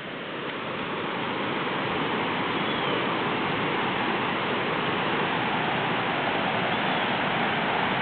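Steady rushing roar of a waterfall, swelling over the first couple of seconds and then holding even.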